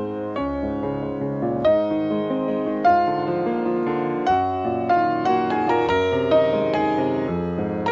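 Background piano music: a melody of struck notes over chords.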